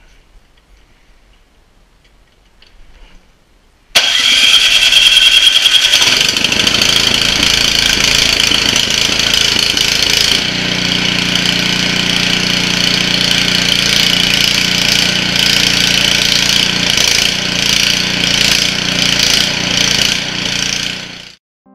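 A Power Smart 22-inch two-stage snow blower's 6.5 hp OHV engine, started with its plug-in electric starter, catches at once about four seconds in and runs loudly. About six seconds later the sound changes, with a steadier low hum coming in under the engine.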